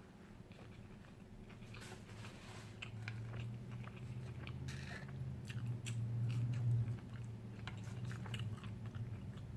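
Close-miked chewing and crunchy biting, a scatter of short wet clicks and crunches, over a low steady hum that swells in the middle.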